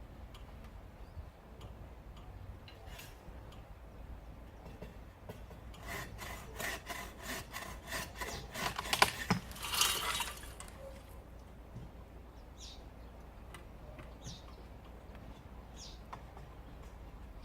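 Hand saw cutting through wood in quick, even back-and-forth strokes, about three or four a second, for roughly four seconds starting about six seconds in. The strokes peak loudest near the end of the run, then stop.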